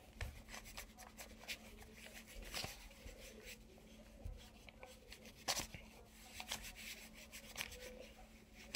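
Faint rubbing and scratching of an eraser on paper in short, irregular strokes as pencil lines are erased.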